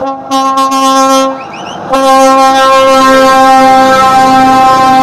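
Scania truck's air horn sounding two loud blasts, a short one of about a second, then a long one of about three seconds.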